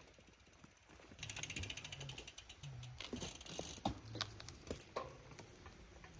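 Bicycle freewheel hub ticking rapidly as the bike rolls without pedalling, followed by a few scattered knocks.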